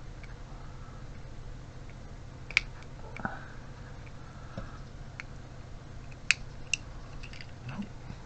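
Small plastic parts of a car electric window switch clicking and tapping as they are handled and pushed back into the switch housing. There are three sharp clicks, two of them close together near the end, among fainter ticks and knocks.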